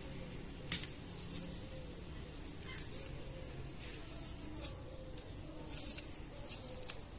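A small knife peeling an onion: short, crisp crackles and scrapes, scattered irregularly, as the blade catches and tears the dry papery skin.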